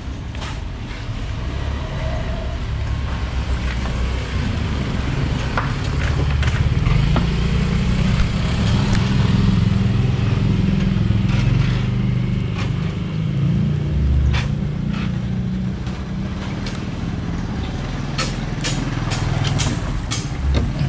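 A motor vehicle's engine running close by with a low rumble that swells and then eases off, and a few sharp taps near the end.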